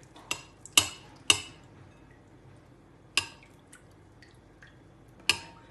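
Sharp clinks and taps in a glass mixing bowl as a spoon and pieces of chicken are worked through soy sauce, about five separate knocks spread irregularly across a few seconds.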